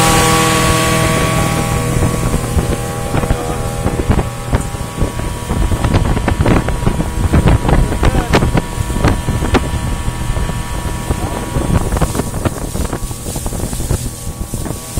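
Mercury 115 "Tower of Power" inline six-cylinder two-stroke outboard running under way at speed. Its steady engine tone is strong at first and fades within the first couple of seconds, leaving wind buffeting and crackling on the phone's microphone over the boat's engine and water noise.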